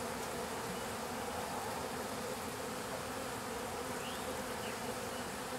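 A swarm of honeybees buzzing steadily around an open hive box, a continuous even hum.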